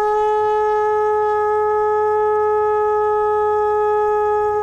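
A conch shell blown as a horn, holding one long note at a steady pitch.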